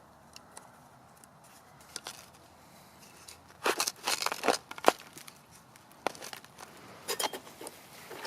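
Crinkling and tearing handling noises, as of hands working with crinkly material, in two short clusters: a loud flurry about four seconds in and a shorter one near the end, with a few single clicks between.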